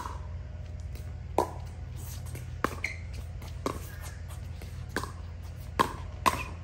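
Pickleball rally: paddles striking the plastic ball, six sharp pops about a second apart, coming faster near the end.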